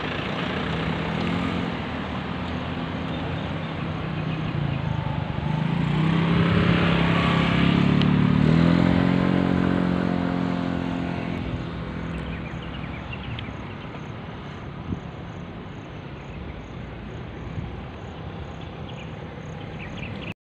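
A motor vehicle's engine passing close by: it grows louder to a peak about eight seconds in, its pitch shifting as it goes, then fades away over steady roadside traffic noise.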